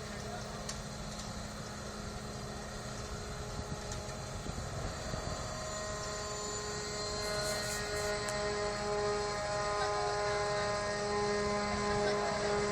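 Steady mechanical drone with several whining tones, growing louder through the second half.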